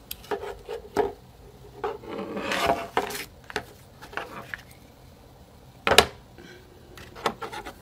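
Handling noises of a Saferell folding-probe digital meat thermometer on a wooden table: scattered light clicks and taps, a rubbing rustle around two to three seconds in, and one sharp knock about six seconds in, the loudest sound.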